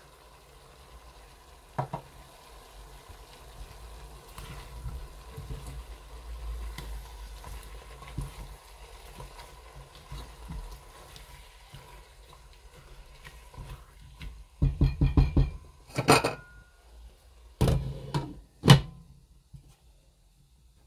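Chicken pieces, onion, carrot and bell pepper frying quietly in a pot, with a spatula stirring and scraping. Near the end come a run of sharp knocks against the pot, the last and loudest as a glass lid is set on it.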